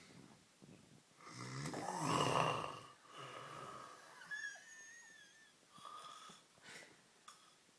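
A man snoring heavily in a drunken sleep: one loud, rasping snore about a second in, lasting about a second and a half, followed by a quieter breath with a thin wheezy whistle and another soft breath near the end.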